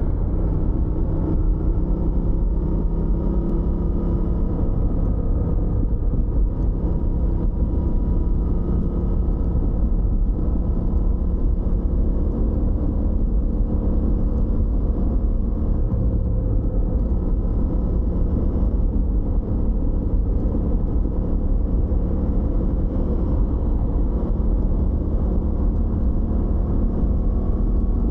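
Suzuki GSX-8R's parallel-twin engine running at a fairly steady speed under way, with low wind rumble, muffled by a microphone inside the rider's backpack.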